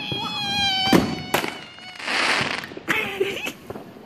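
Consumer fireworks going off: a high whistle, falling slightly in pitch, for about the first second, then sharp bangs and a crackling hiss.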